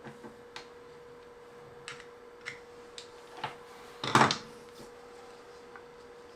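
Scattered small clicks and taps of objects being handled on a workbench, with one louder clatter about four seconds in, over a steady electrical hum.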